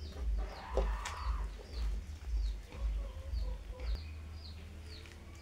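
Birds chirping, short high chirps about twice a second with a few lower clucking calls, over a low rumble that settles into a steady low hum about four seconds in.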